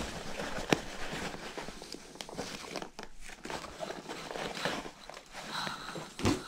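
Hands handling a fabric boonie hat and plastic-wrapped items in a cardboard box: rustling and crinkling, with a sharp knock about a second in and another thump near the end.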